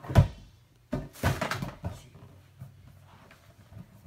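A large inflatable ball thudding as it is thrown and bounces off the floor and things in the room: one loud hit just after the start, then four quicker, smaller knocks about one to two seconds in.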